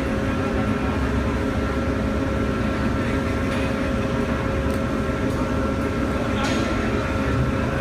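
Steady low drone of heavy machinery with two constant whining tones over it, and a few faint clicks about five and six and a half seconds in.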